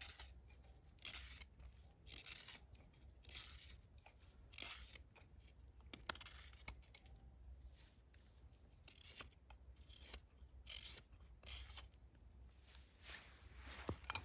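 Hook knife carving out the bowl of a wooden kuksa cup: faint, repeated shaving strokes of steel through wood, roughly one a second, with a pause in the middle.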